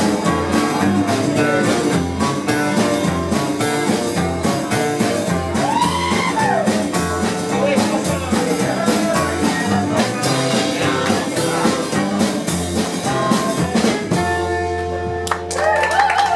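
Rockabilly band playing live: electric guitar over upright bass, with a steady beat, in an instrumental stretch. About fourteen seconds in, the band stops on a final chord that rings on.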